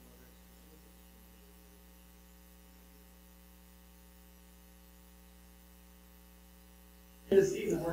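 Steady electrical mains hum, a low buzz with a stack of evenly spaced overtones, carried on the room's microphone and sound system between speakers. Near the end a loud voice cuts in close to the microphone.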